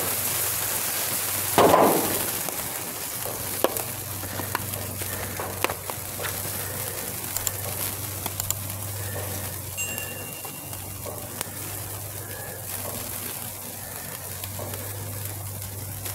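Thick ribeye steaks searing on a gas grill over high flame: a steady sizzle with scattered crackles and pops of dripping fat, over a low steady hum. A short louder knock comes near two seconds in.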